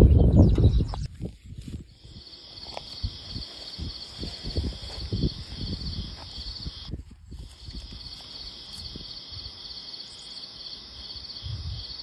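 Steady, high-pitched insect trill with a fine rapid pulsing, breaking off briefly about seven seconds in and then resuming. A loud low rumble fades out about a second in, and soft low knocks come and go throughout.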